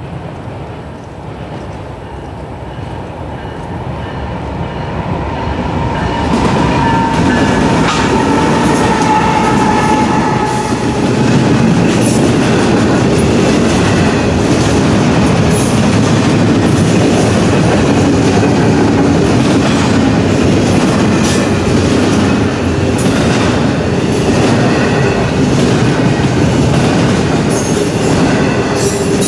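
Double-stack intermodal freight train passing over a grade crossing. Its rumble builds over the first six seconds, then holds steady with wheels clattering over the rails and occasional sharp clanks.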